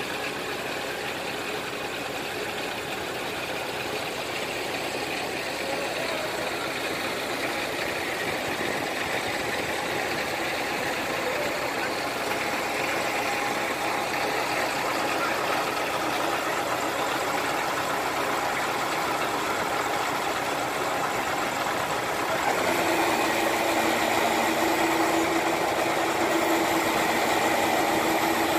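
Truck-mounted crane's engine running steadily, growing gradually louder, then stepping up to a stronger, steadier hum about 22 seconds in.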